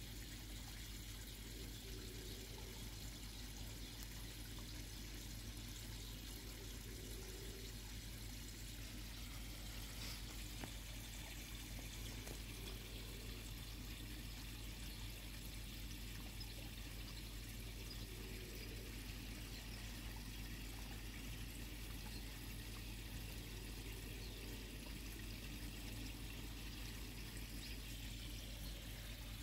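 Water pouring and trickling steadily into a koi pond, with an even low hum underneath.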